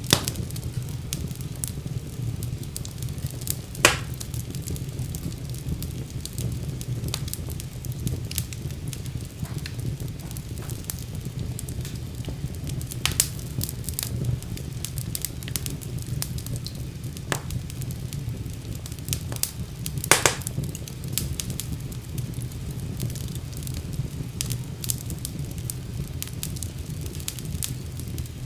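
Wood fire burning in a fireplace: a steady low rumble of flames with frequent small crackles and a few louder pops, the loudest about four seconds in and about twenty seconds in.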